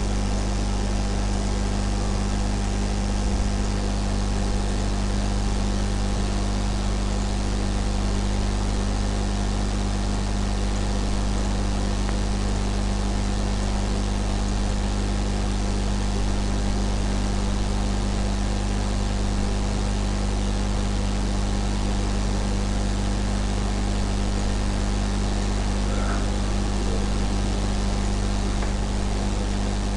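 Steady low electrical hum with hiss, unchanging: the background noise of the microphone and recording setup.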